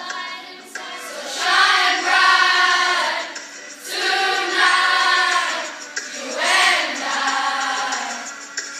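A group of children singing together as a choir, in three sustained phrases with short breaks between them.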